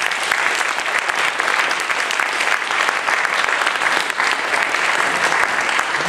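Audience applauding: a dense, steady clapping of many hands.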